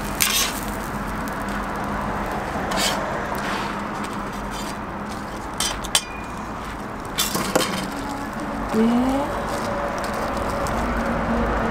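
Metal spatula clinking and scraping on a flat steel griddle several times, over a steady hiss.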